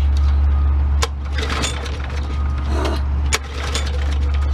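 Push lawn mower's small engine running at a steady speed, with scattered sharp ticks and clicks over the hum.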